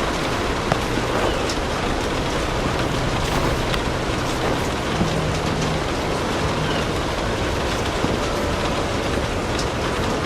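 Steady rain falling, a dense even hiss, with a few sharp crackles of a wood fire in a fireplace scattered through it.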